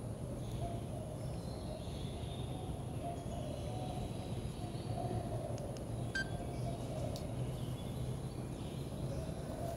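Steady outdoor background hum with a few faint bird chirps around the middle.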